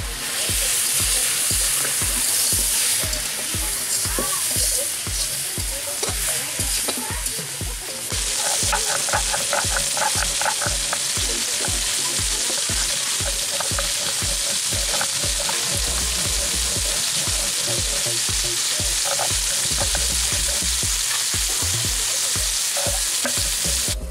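Chicken pieces, potatoes and turmeric sizzling in hot oil in a metal kadai, stirred and scraped with a metal ladle. About eight seconds in the sizzle drops back and quick rough scraping strokes come in: a stone roller grinding cumin, ginger and garlic on a stone slab.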